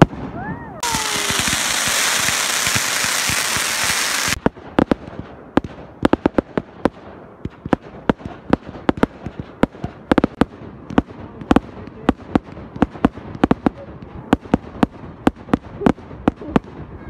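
Fireworks display: a loud hiss for about three and a half seconds near the start, then a long run of sharp pops and bangs, several a second at irregular intervals.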